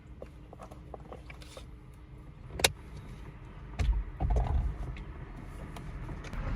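A sharp click about two and a half seconds in, then another click and a second or so of knocking and handling noise, over a steady low rumble.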